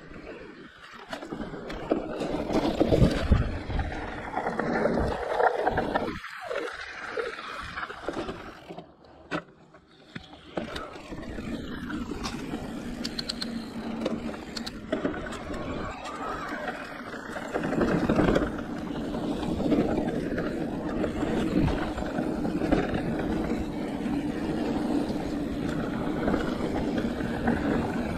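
Giant Reign E+ electric mountain bike ridden down a dirt trail: knobby tyres rolling and scrabbling over the ground with frame and chain rattle, rising and falling with the terrain and easing off briefly about nine seconds in.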